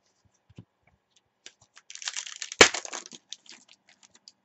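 Crinkly plastic wrapper of a trading-card pack being torn open by hand, with one sharp crack in the middle followed by a few lighter rustles.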